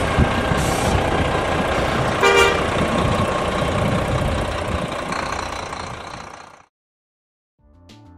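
Vehicle noise with a brief horn toot about two seconds in, fading away to silence after about six and a half seconds. Faint music starts near the end.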